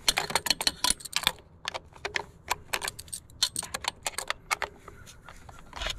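Ratchet wrench clicking in quick, uneven runs with short pauses as a screw is driven in.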